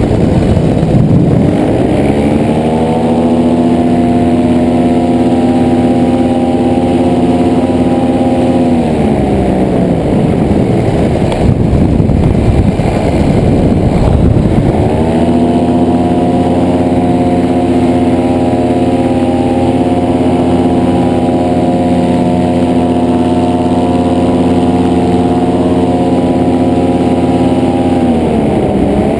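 Engine and propeller of a two-seat paramotor trike in flight, heard from on board. It runs up to a steady note in the first few seconds, is throttled back for about five seconds near the middle, then runs up again and holds steady, dipping briefly at the very end.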